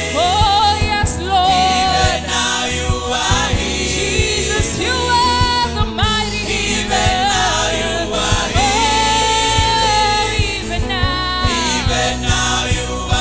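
Gospel choir singing a worship song live, with lead singers on microphones carrying wavering held notes over the massed voices. Steady bass notes and a beat of percussive strokes run beneath.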